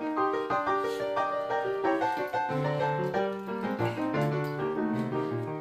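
Background piano music: a brisk melody of quick, even notes over lower bass notes.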